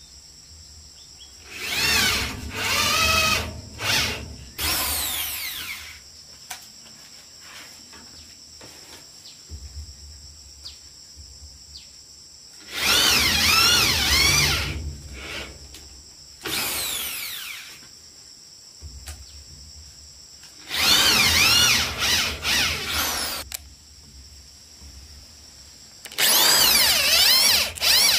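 Corded electric drill boring into a wooden beam with a wood bit, in about seven short bursts of a second or two each, the motor whine sagging and rising in pitch as the bit bites and clears. The holes are drilled side by side within a marked rectangle, roughing out a mortise.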